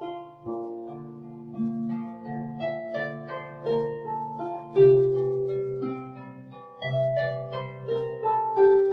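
Harp music: gentle, slow plucked notes and arpeggios over sustained low bass notes, with a few stronger accented notes about five and seven seconds in.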